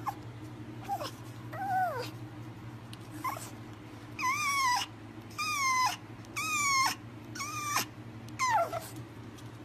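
Pomeranian puppy whining: a string of about nine short, high-pitched whines, each rising then falling in pitch. The loudest three come about a second apart midway through, over a steady low hum.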